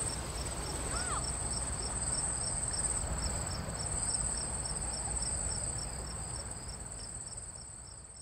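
Insects chirping: a steady high trill with a pulsing chirp about three times a second, over a low rumble, fading out near the end.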